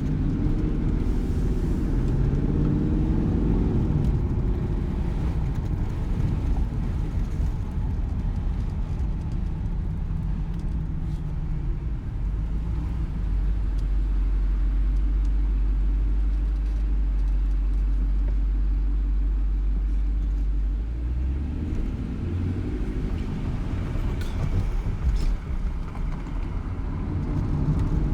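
Dodge Charger R/T's 5.7-litre HEMI V8, breathing through an AFE cold air intake, driving on the road. The engine pitch rises and falls in the first few seconds, settles into a steady low drone while cruising, then climbs again near the end as it accelerates.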